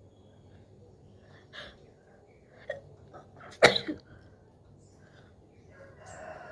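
A woman with a head cold sneezing once, loudly, about three and a half seconds in, after a few fainter short sounds. A breathy noise starts near the end.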